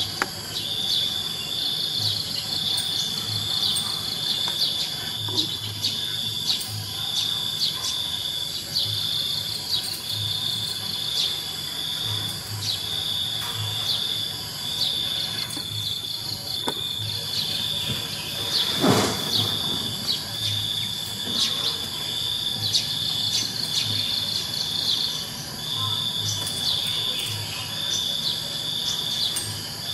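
A cricket chirping in a steady high trill, broken by a short gap roughly once a second. About two-thirds of the way through, one brief louder sound sweeps down in pitch.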